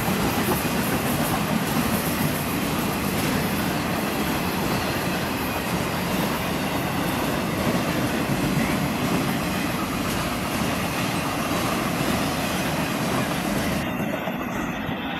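Railroad flatcars of a long passenger-and-freight train rolling past close by: a steady rumble and rattle of steel wheels on the rails. The higher hiss drops away near the end.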